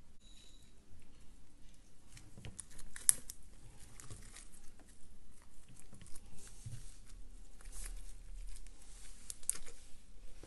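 Homemade pink glue slime being stretched and squished by hand, giving off irregular small pops and crackles, the sharpest about three seconds in and again near the end.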